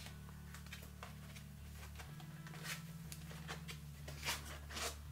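Faint rustles and light clicks of a spare drone battery and its foam-insert packaging being handled, a few small knocks standing out in the second half, over a low steady hum.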